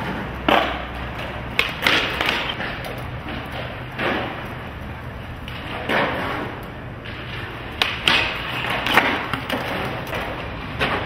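Skateboard wheels rolling over concrete, with about ten sharp clacks and thuds of boards popping and landing, scattered irregularly through the stretch.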